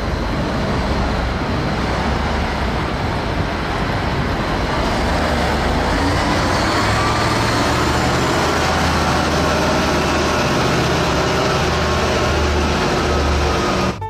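Liebherr all-terrain mobile crane's diesel engine running with a steady low rumble as the heavy multi-axle carrier drives slowly along the road, its pitch climbing a little about halfway through.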